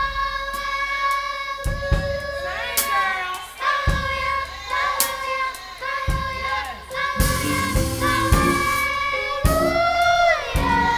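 Children's choir singing, holding long notes with some glides in pitch, over occasional sharp hits.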